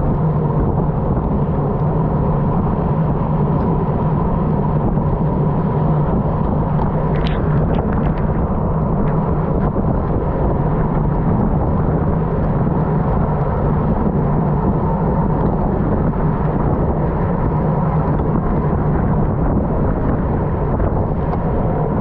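Steady wind rushing over the microphone while travelling at speed, with a constant low hum beneath it. A brief crackle comes about seven seconds in.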